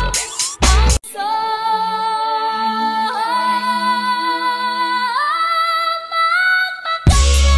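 Music: a beat-driven track cuts off about a second in, followed by a woman's voice singing long held notes with no drums, stepping up in pitch twice; a bass-heavy beat comes back near the end.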